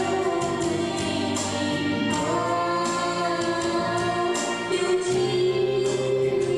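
A voice singing a pop song over karaoke backing music, holding long notes that slide in pitch.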